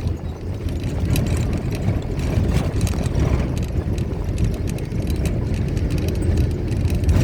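Motor vehicle running with a steady low rumble, with irregular light rattles and clicks throughout.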